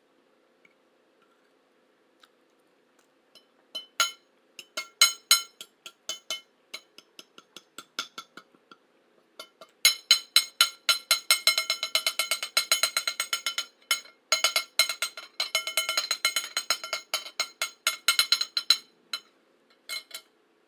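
A metal utensil clinking against a dish: a few scattered taps, then a long run of rapid ringing clinks, several a second, that stops about a second before two last taps.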